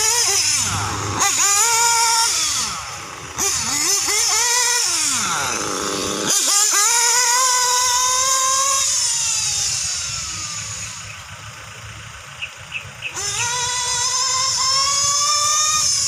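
RC buggy's motor revving up and down as the car is driven hard, its pitch rising with each burst of throttle and falling off between them. The sound grows fainter for a few seconds as the car runs far off, with a few short clicks in that lull, then comes back up.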